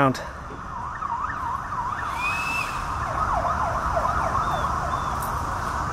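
Sirens of a motorcade's police escort, more than one sounding at once in rapid yelping up-and-down sweeps, over a low traffic rumble.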